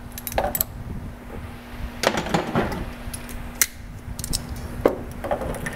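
Light clicks and clattering knocks at irregular intervals as small flange pieces for a Corvette rocker panel are handled, over a steady low hum.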